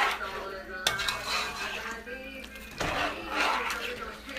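A spoon stirring a pot of thick gravy with chicken pieces, scraping and clinking against the pot, with sharp knocks about a second in and again near three seconds.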